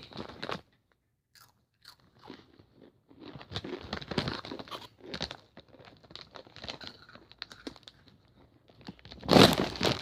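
Crunching and chewing of Takis rolled corn tortilla chips close to the microphone, many short crackly crunches, with a louder burst a little before the end.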